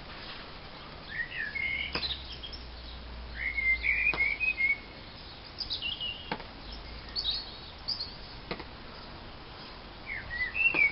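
Small wild songbirds chirping and twittering in short bursts of song, with a few faint sharp ticks between them.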